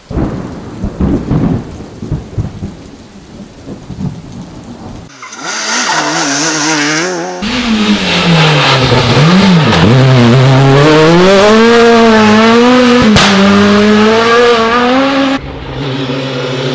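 Rally car engines at full throttle on a special stage, heard in several short cuts: a rough rumbling noise for the first few seconds, then engines revving hard, their pitch climbing and dropping through gear changes and lifts, with a sharp click about thirteen seconds in.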